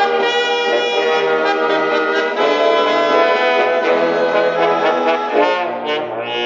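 Loud orchestral cartoon score with prominent brass, several parts sounding together, with a brief drop in the upper parts near the end.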